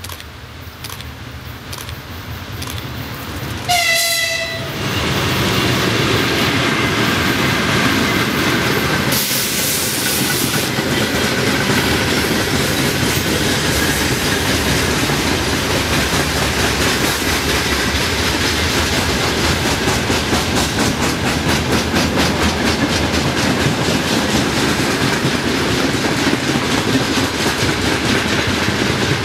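A Donchak-type electric locomotive hauling a freight train sounds one horn blast of about a second, about four seconds in, as it draws near. The freight wagons then roll past with a steady rumble and rhythmic wheel clatter over the rail joints.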